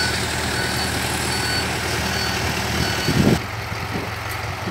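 Dump truck engine idling steadily while its reversing alarm gives short beeps roughly once a second. About three seconds in there is a loud low thump, after which the beeping stops and the engine keeps idling.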